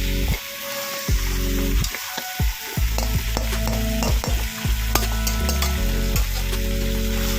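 Chicken curry frying and sizzling in a pan while it is stirred, the spoon scraping and clicking against the pan, over a low steady hum.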